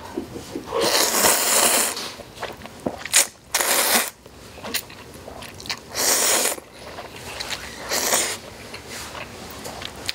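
Instant ramyeon noodles slurped in long, noisy pulls, about five slurps with chewing between.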